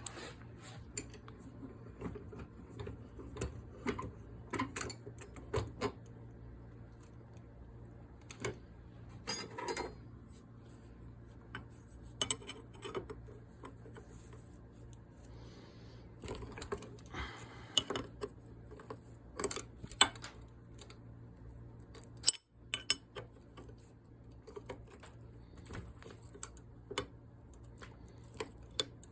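Metal spray-gun parts and hand tools clinking, tapping and knocking now and then while the gun is clamped in a vise and worked on, with a faint steady hum underneath.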